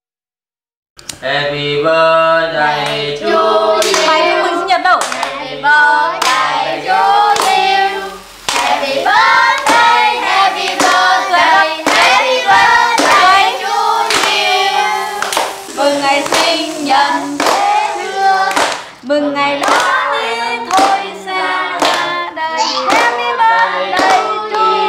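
A group singing a birthday song and clapping along, about two claps a second, starting about a second in after a brief silence.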